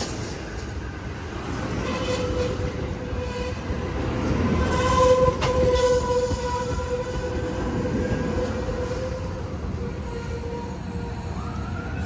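Amtrak San Joaquin bilevel passenger cars rolling slowly past with a steady low rumble as the train brakes to a stop. A steady two-pitched squeal comes in about two seconds in, is loudest around the middle and fades out near the end.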